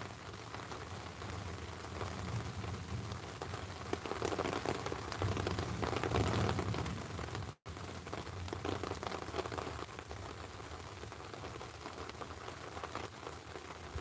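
Steady rain falling. It grows louder, with a deeper rumble underneath, from about four to seven seconds in, then eases. The sound cuts out for an instant just past halfway.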